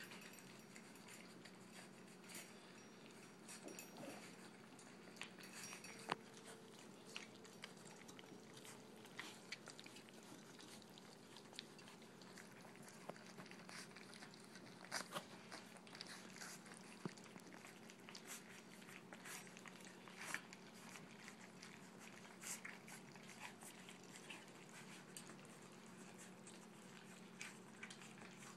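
Brittany puppies lapping, smacking and chewing wet, blended puppy food from a steel feeding pan: faint, with many small scattered clicks over a low steady hum.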